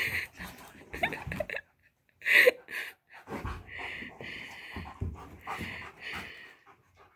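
A goldendoodle puppy and a schnauzer puppy play-fighting: quick bursts of breathy huffing and panting, with one louder short yelp about two and a half seconds in.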